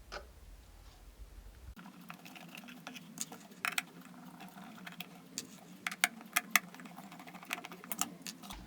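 Irregular small clicks and taps of a screwdriver working the screws out of an electric kettle's plastic base, starting about two seconds in.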